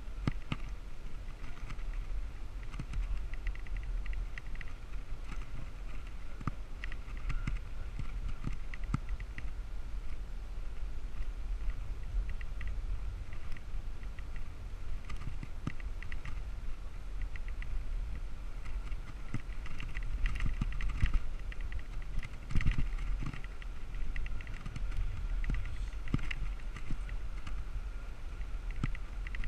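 Bicycle riding on a paved road, heard from a camera carried on the ride: steady wind rumble on the microphone with frequent light clicks and rattles of the bike over the road surface.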